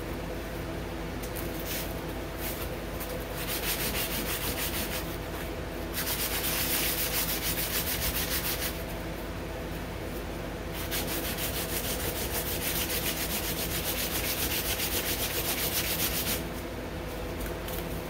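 Sandpaper rubbed by hand over a small chromatic harmonica mouthpiece slider to shape it: quick back-and-forth scratchy strokes in runs of a few seconds, louder in the middle, stopping shortly before the end.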